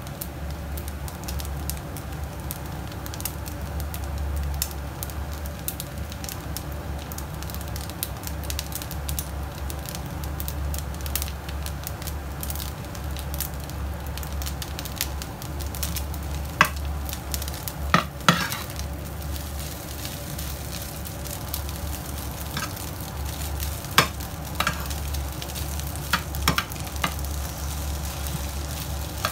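Rice sizzling as it fries in a nonstick pan, over a steady low hum. From about halfway through, a metal spatula scrapes and clicks against the pan several times as the rice is stirred.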